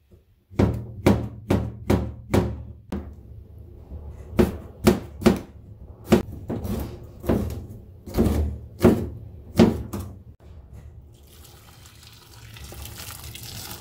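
Kitchen knife chopping through oyster mushrooms and then an onion onto a plastic cutting board: sharp chops in quick runs of two to three a second with short pauses. Near the end, warm water is poured into a stainless steel pot of peeled quail eggs, a steady splashing hiss.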